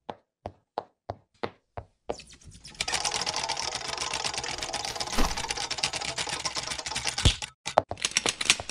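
Cartoon intro sound effects: six separate sharp clicks about three a second, then a dense, rapid mechanical clatter lasting about five seconds with a couple of thumps in it, and a few more clicks near the end.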